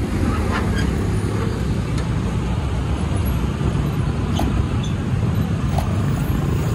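Track-measuring train passing over a level crossing: a steady rumble with a few sharp clicks scattered through it.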